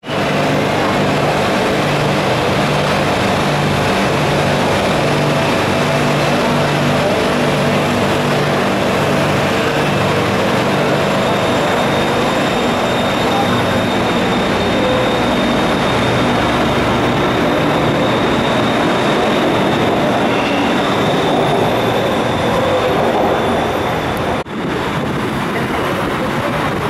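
Electric metro train on an elevated platform pulling away and running past, a steady rumble of wheels and motors with a pulsing low hum early on and a steady high whine once it is moving. After a brief dip near the end, another train is heard approaching the platform.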